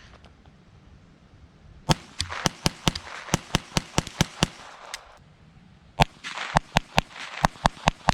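Ruger Charger .22 LR pistol firing rapid semi-automatic shots in two quick strings, about four shots a second, with a pause of about a second and a half between them.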